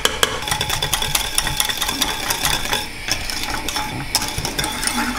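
Wire whisk clicking rapidly against the inside of a stainless steel saucepan, beating squid ink into béchamel sauce.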